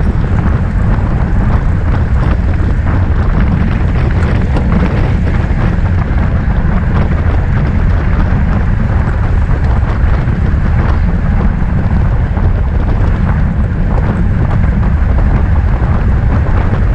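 Steady, loud wind buffeting a bicycle-mounted camera's microphone as the bike races at speed.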